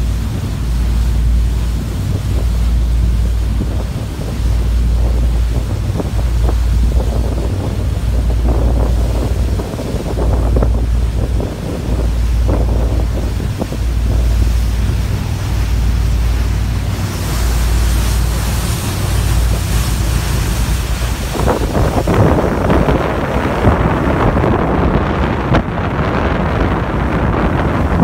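Wind buffeting the microphone on the deck of a boat under way, with the rush of choppy water. The noise grows fuller and hissier about three-quarters of the way through.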